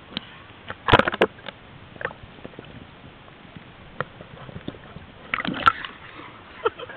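Water splashing and sloshing right at the camera as it dips into the water and comes out wet, in a few short splashes about a second in and again past five seconds, with single drips or knocks between.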